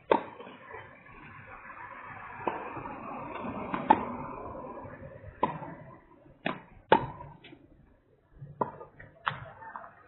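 Tennis balls being struck by rackets and bouncing on the court: about eight sharp knocks at irregular intervals, the loudest about four seconds in. A rushing noise runs under the first half.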